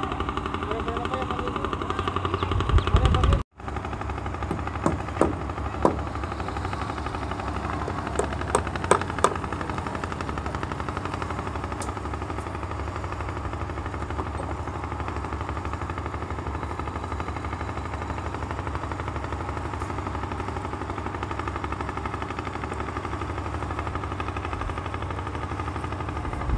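An engine running steadily with a fast, even pulse. A few sharp knocks come about five seconds in and again about nine seconds in, and the sound cuts out for an instant about three and a half seconds in.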